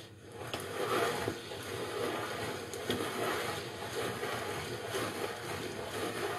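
Pasta roller machine running steadily as a sheet of semolina dough is fed through its rollers and pressed thin.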